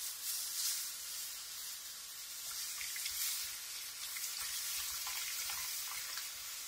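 Cold milk poured into a hot frying pan of toasted butter-and-flour roux, hissing and sizzling steadily as it hits the pan, with a few faint crackles.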